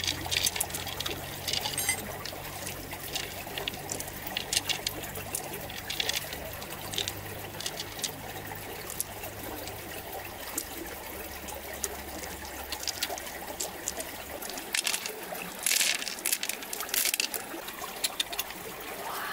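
Water trickling steadily, with many small sharp clicks as pearls and shell are handled in an opened giant freshwater pearl mussel.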